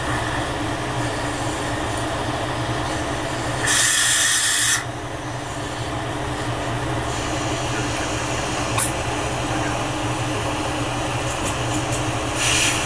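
Triple-mix glassblowing torch running with a steady hissing rush over a low hum. About four seconds in there is a loud burst of hiss lasting about a second, and a shorter one near the end.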